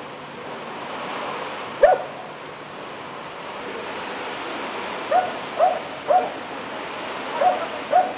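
A dog barking: one bark about two seconds in, then five more in two quick groups in the second half. A steady rush of running floodwater lies underneath.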